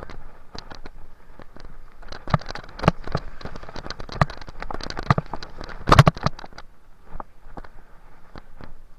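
Mountain bike clattering down a rough trail, its tyres crunching over wet leaves and mud, with many sharp knocks and rattles from bumps. The loudest knocks come about three seconds in and again about six seconds in.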